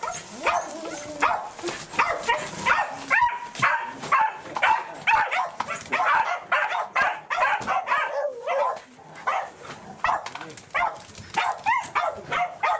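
Welsh corgi vocalising in excitement at a greeting: a rapid, unbroken run of short high yelps and whines, several a second, with pitch that bends up and down.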